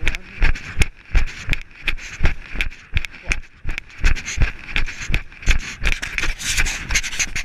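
A runner's footsteps on a gravel-topped lane, each stride jolting the body-worn camera: a steady run of thumps, about two and a half to three a second. A louder rustle comes near the end.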